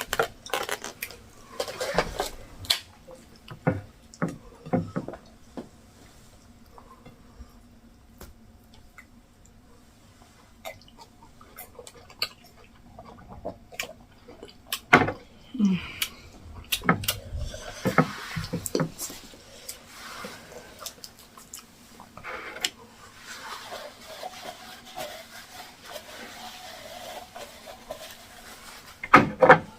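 Scattered clinks and knocks of a cup and dishes being handled, with some water sounds as the cup is rinsed.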